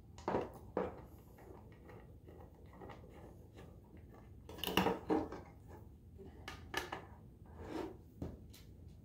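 Light metallic knocks and clatter as a circuit-board assembly is handled and set into an aluminum case, with a quick run of knocks about halfway through and single knocks near the start and towards the end.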